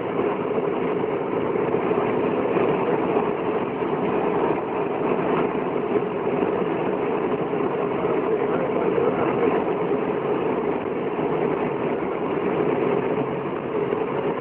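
Steady engine and road noise of a convoy vehicle driving along, heard from inside its cab.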